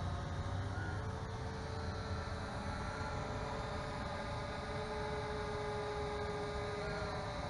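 Small electric motors and propellers of radio-controlled aircraft, a toy quadcopter drone and a foam RC C-17 model plane, humming steadily with a few faint held tones that drift slightly in pitch, over a low rumble of wind on the microphone.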